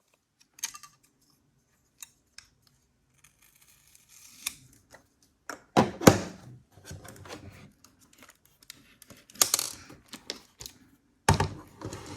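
Clicks, taps and knocks of small hard parts being handled as the mounting bracket is taken off a 2.5-inch laptop hard drive. The sounds are scattered, with a pair of louder knocks about six seconds in and a longer scraping rattle near the end.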